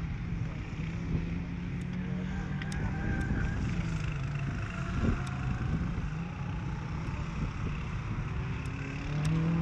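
Car engines running and revving on a race circuit at a distance, their pitch rising and falling through the gears, over a steady low hum.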